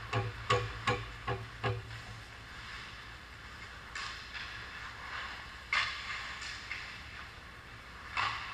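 Ice hockey rink sound over a steady low hum: a quick run of five sharp taps in the first two seconds, then a few scattered clacks of sticks and puck.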